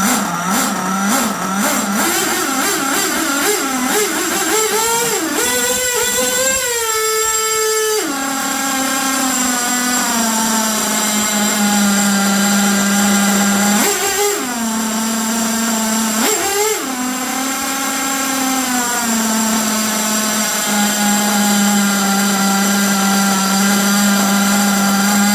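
HPI Savage X 4.6 nitro engine running on its stock exhaust. It is revved up in a slow, wavering climb for several seconds and drops back to a steady idle about eight seconds in. Two short throttle blips follow, and then it idles on.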